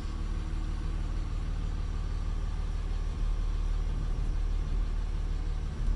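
Dodge pickup's 5.9-litre Cummins diesel engine idling steadily, heard from inside the cab.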